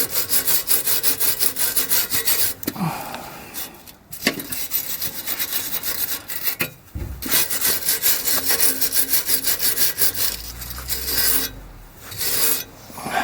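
Exhaust repair paste being worked by hand onto the exhaust pipe's weld joints: rapid back-and-forth scraping strokes against the pipe, which stop briefly three times.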